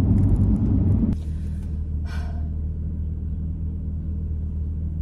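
Low rumble of road and engine noise inside the cabin of a moving BMW M2. About a second in it cuts off abruptly and gives way to a quieter, steady low hum of the car standing with its turbocharged straight-six idling. A brief soft voice sound comes about two seconds in.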